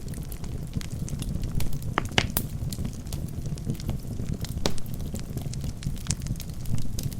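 Wood logs burning in a fireplace: a steady low rush of flames with scattered crackles and pops, a cluster of sharper pops about two seconds in and another near five seconds.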